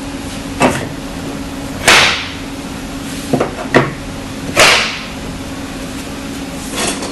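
Spring steel clips being knocked onto the edges of plywood crate panels: about five sharp strikes, the loudest two about two seconds in and near the middle, each with a brief ring, over a steady low hum.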